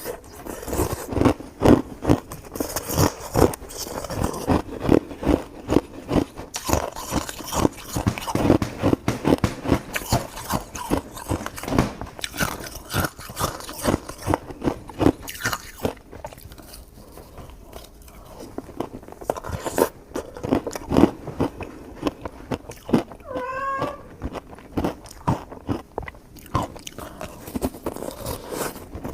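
Crunchy food being chewed, a quick, uneven run of crunches that eases for a few seconds in the middle. About three-quarters of the way through there is one short, wavering, pitched squeak.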